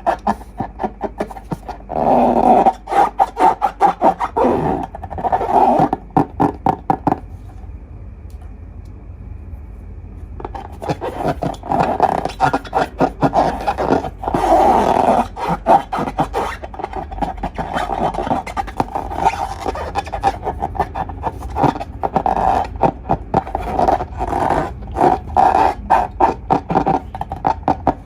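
Slime being squeezed and worked, giving fast runs of sticky squelching and crackling pops, with a short lull about seven seconds in before it starts again.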